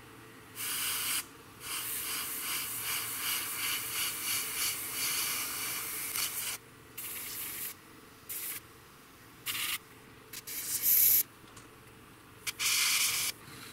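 Airbrush spraying paint through a stencil, its air hiss starting and stopping in bursts as the trigger is pressed and released: one long spray of about five seconds, then several short ones, the loudest a couple of seconds before the end.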